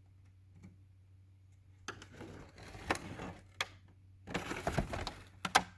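Handling noise: rustling and scraping as objects are moved about, with several sharp clicks near the end, over a faint steady low hum.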